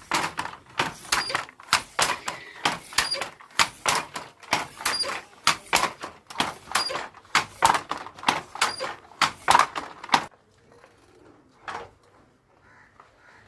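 Wooden handloom weaving silk: a rapid, regular train of sharp wooden clacks from the shuttle and beater, with a faint metallic ping repeating about every two seconds. The clacking stops about ten seconds in, leaving only a few faint knocks.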